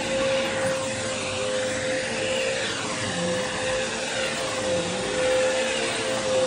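Vacuum cleaner running on carpet with a steady whine; lower tones dip and rise now and then as it works.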